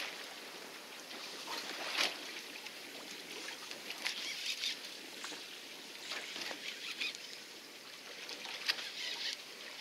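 Sea water splashing and sloshing against a fishing boat's side, in short irregular surges every second or so over a steady hiss.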